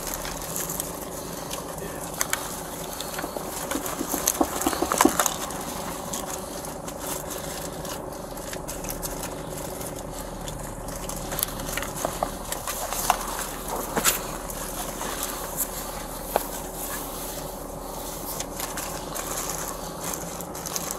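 Scattered clicks and rustling of items being handled during a vehicle search, over a steady low hum.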